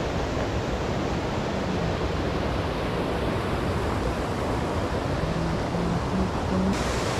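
Steady rush of a muddy river in flood, swollen by heavy rain, its water pouring over small cascades.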